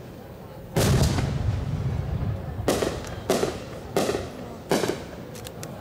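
No. 5 (15 cm) aerial firework shells bursting. A heavy boom comes about a second in and rumbles on for a couple of seconds, followed by four sharp bangs about two-thirds of a second apart and a few faint crackles near the end.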